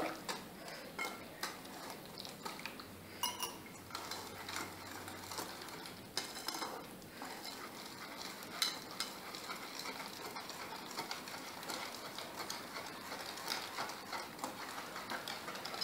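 Wire whisk stirring malpua batter of flour, semolina, sugar and milk in a ceramic bowl: faint, irregular clicks and scrapes as the wires tap the bowl.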